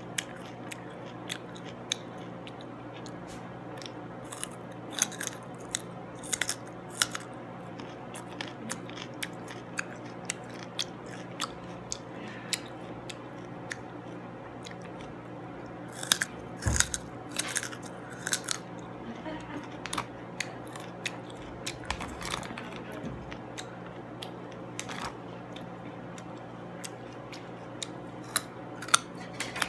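Close-miked chewing of crunchy food: sharp crunches and mouth clicks come in irregular bunches, with a run of louder crunches about halfway through, over a steady low hum.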